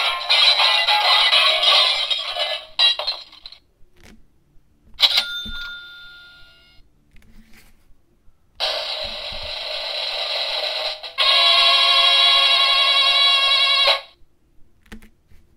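Novelty sound-effects box playing a string of short pre-recorded effects through its small tinny speaker, one after another with brief gaps and clicks between them. There are about five different effects: a noisy one, a short ringing one around five seconds in, and a buzzy tonal one near the end.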